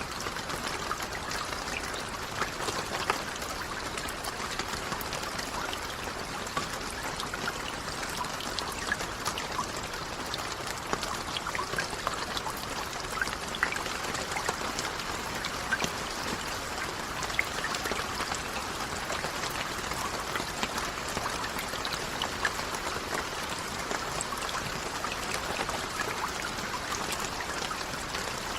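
Steady rain: a continuous even hiss dotted with many small, sharp drop ticks, with no thunder.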